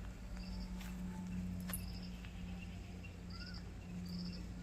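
Short, high, pulsed chirps from small wildlife recurring about once a second, over a steady low hum.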